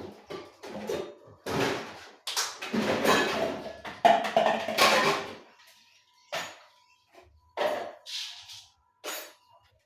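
Kitchenware clattering and knocking as things are moved about and handled, in a run of irregular bangs and scrapes that is busiest in the middle and thins out to a few light knocks near the end.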